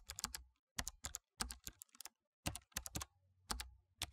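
Typing on a keyboard: quick, uneven runs of key clicks, a few at a time with short pauses between.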